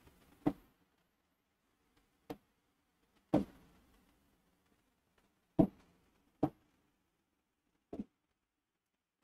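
Fingertip taps on an interactive touchscreen display, six short knocks at irregular intervals.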